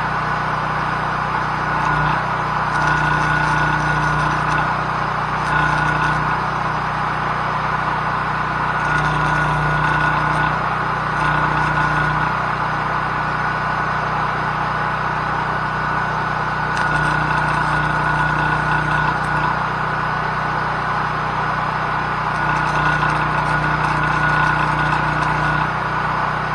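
Small gasoline engine, likely a portable generator, running steadily. Several stretches of a few seconds each bring a louder buzz with crackle, consistent with an arc welder drawing on it.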